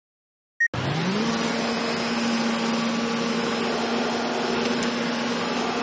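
A photocopier's button beep, then its motor starts with a quick rising whine and runs with a steady mechanical hum.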